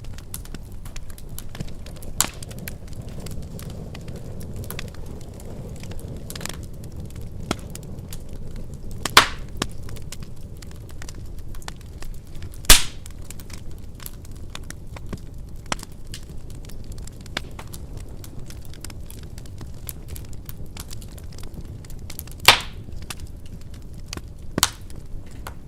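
Wood fire burning in a fireplace: a steady low rush of flames with scattered small crackles and a few loud, sharp pops, the loudest about halfway through and another near the end.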